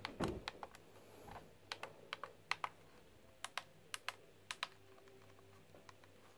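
Plastic buttons on an Eton Zoneguard weather radio being pressed, a scattered series of faint, sharp clicks, some in quick runs of two or three. A soft handling bump comes just after the start.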